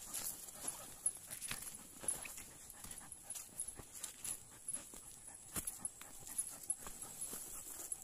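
Footsteps crunching on a dirt trail, irregular, as a Belgian Malinois walks on its leash panting from the climb. A steady high-pitched whine runs underneath.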